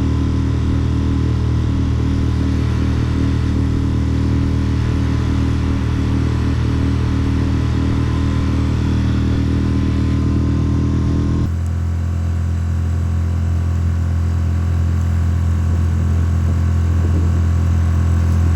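Dinghy's outboard motor running steadily under way, with an abrupt change in its tone about eleven seconds in.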